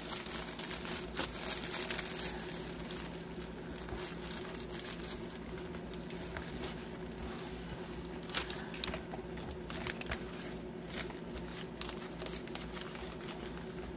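Plastic bags crinkling and rustling as they are handled and pushed into a cardboard kit box, with scattered small scrapes and taps. The crinkling is densest in the first couple of seconds and again just past the middle.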